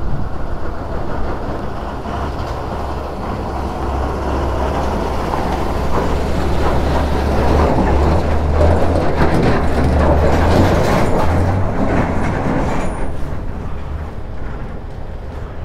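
Motorcycle engine running at low speed while a heavy army truck drives past close alongside, its engine rumble and body rattle building to a peak about ten seconds in, then fading.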